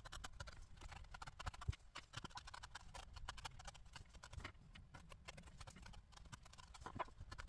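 Felting needle stabbing repeatedly into a needle-felted wool sheep, a quick run of faint rhythmic pokes as the curly coat is worked over to secure it.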